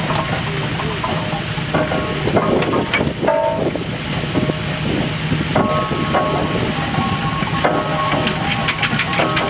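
Fowler steam ploughing engine at work: a steady low mechanical running with frequent clanks and knocks and short squeaky tones.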